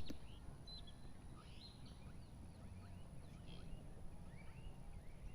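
Wind noise on the microphone, with many short bird chirps and calls scattered throughout. A brief knock comes right at the start.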